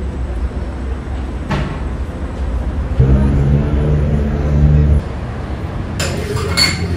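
Low rumble of running engines, with a louder steady engine hum for about two seconds in the middle that cuts off abruptly. Near the end, cups and crockery clink in a café.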